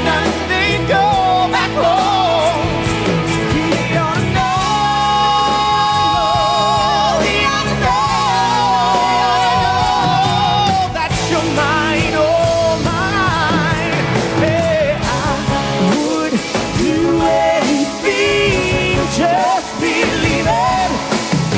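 Live song performance: a male lead singer with female backing singers over a band of organ, electric guitars and drums. The voices hold several long notes with vibrato.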